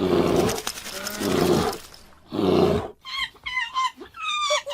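A bear roaring three times, each a loud, rough call lasting under a second. About three seconds in, a run of short, high chirping notes follows.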